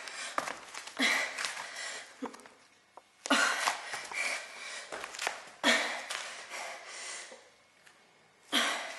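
A woman breathing hard from exertion: long, noisy breaths about every two to two and a half seconds, with a few faint taps between them.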